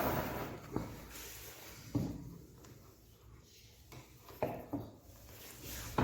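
Light handling noises: a handful of separate sharp clicks and knocks, as an LED bulb and small tools are picked up and worked on a bench.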